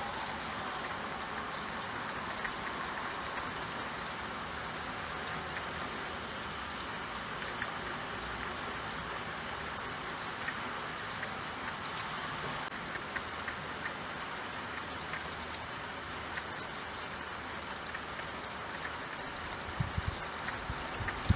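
Steady rainfall, an even hiss with scattered individual drops ticking. Near the end a few low thumps come in.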